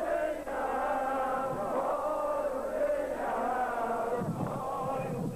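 A crowd of mourners chanting together in long, drawn-out phrases, with a low rumble about four seconds in.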